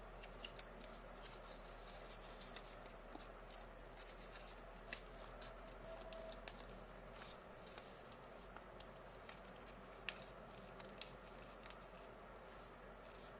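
Faint crinkles and soft clicks of an origami paper sheet being creased and pushed into shape, scattered every second or two over low room hiss.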